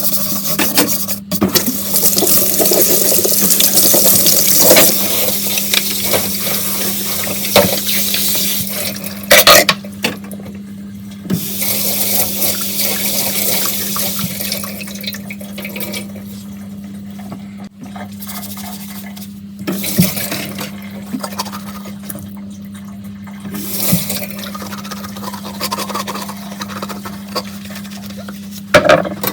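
Tap water running into a kitchen sink while dishes are washed. The flow is loudest and steadiest for roughly the first third, then turns quieter and broken up, with a few short knocks of dishes.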